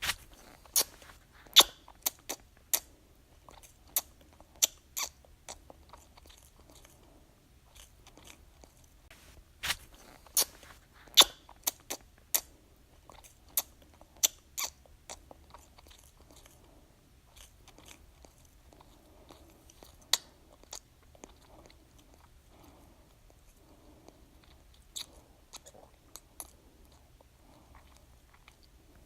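Baby sucking on a pacifier: irregular sharp wet clicks and smacks, coming thick and fast at first and more sparsely after the middle, with softer mouth sounds in between.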